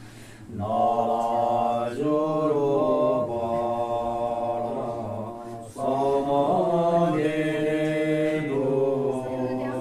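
Voices chanting in long, held tones that slide slowly in pitch, in phrases that break off briefly about half a second in, around two seconds in and near six seconds in.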